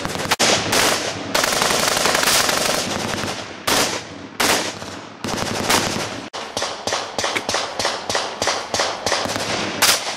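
FN P90 submachine gun firing full-auto: a long burst of about three seconds starting half a second in, then two short bursts. After that comes a fast string of separate shots, about four or five a second, running to near the end.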